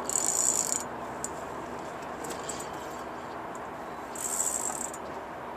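Spinning reel on a rod bent by a hooked striped bass, buzzing with fast clicks in two short bursts: one at the start, one about four seconds in.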